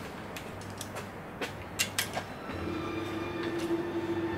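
Ratchet on a long extension clicking unevenly, a few clicks at a time, as the ARP main-stud nuts on a forged RB26 block are run down gently and gradually before torquing. A steady hum comes in a little past halfway.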